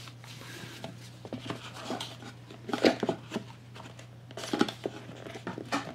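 Cardboard tuck case of a playing-card deck being pushed into a too-tight slot of a lined box: scattered scuffs and taps, with sharper knocks about halfway through and again near the end. The fit is so tight that the tuck case is crushed going in.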